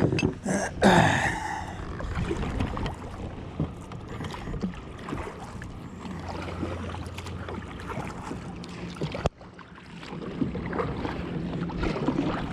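A kayak being paddled, with the paddle splashing and dripping in the water. There are a few loud knocks and clatter in the first second or so as the anchor comes up.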